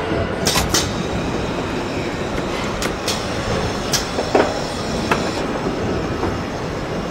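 Steady rumbling workshop noise in a large hangar, with scattered sharp metallic clinks and knocks from hand tools at a helicopter rotor hub. A brief falling squeak a little over four seconds in is the loudest moment.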